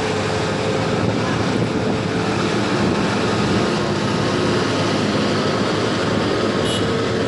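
Steady rush of spraying water, washing mud off a toy sand truck.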